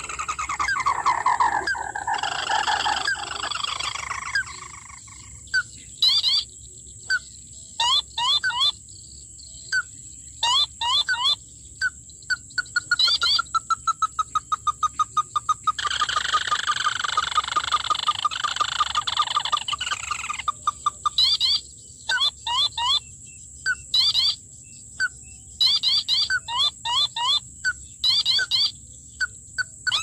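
A recorded crake lure call (tikusan mata merah, also called sintar api) playing on a loop from a small speaker. A descending chattering trill comes at the start and again about halfway through; between these are bursts of sharp chirps and a fast even run of clucking notes. A constant thin high tone sits underneath.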